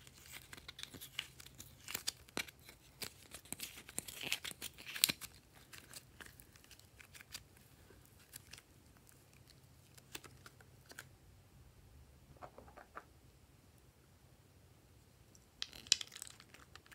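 Slime being squeezed and pulled apart by hand: dense crackling and tearing for the first five seconds, thinning to scattered soft clicks, with a short burst of crackling near the end.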